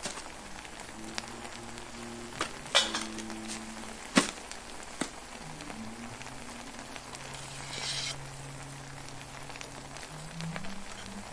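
Masala bubbling and sizzling in a steel pot as parboiled basmati rice is tipped in from a perforated steel strainer, with a few sharp metal clinks of the strainer against the pot, the loudest about four seconds in.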